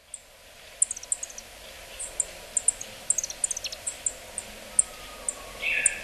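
Yellow-throated bunting calling: short, high, sharp notes repeated irregularly, some in quick falling runs of three or four. A brief louder, lower sound comes near the end.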